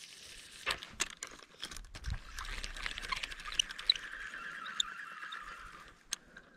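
A cast and retrieve with a spinning reel. There is a hiss of line paying out, a few clicks and a knock about two seconds in, then the reel is wound steadily for about three seconds and stops.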